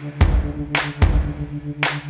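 Background music: a steady drum beat, deep thumps and sharp hits each under a second apart, over held chords.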